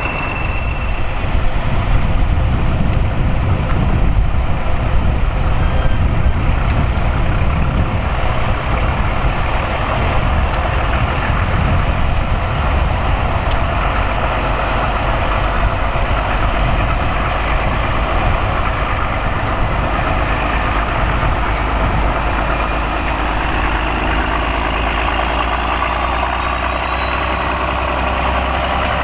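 Class 17 'Clayton' diesel locomotive D8568 running as it moves slowly along with its train of coaches, the engine a steady low drone. A thin whine rises gradually in pitch over roughly the last seven seconds.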